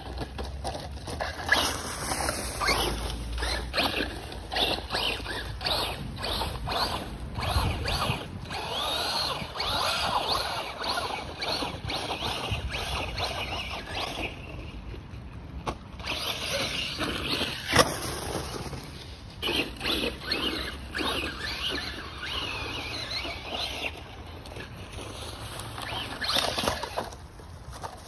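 Electric motor of a 1/8-scale FTX DR8 RC truck whining up and down in pitch as it is throttled in bursts, with tyres scrabbling over dirt, roots and dry leaves. It drops away briefly past the middle, and there is a sharp knock about 18 seconds in.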